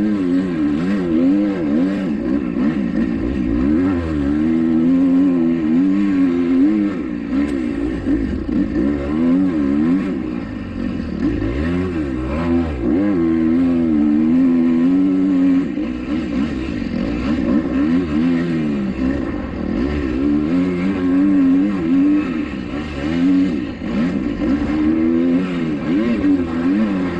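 A 2021 Kawasaki KX250X four-stroke single-cylinder dirt bike engine under hard riding, its pitch rising and falling again and again with the throttle.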